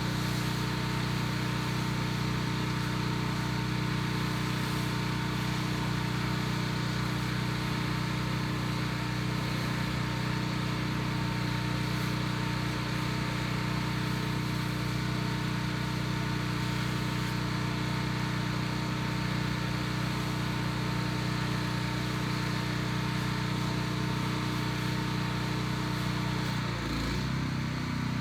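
Pressure washer engine running steadily under load, with the hiss of the water spray over it. Near the end the engine note shifts.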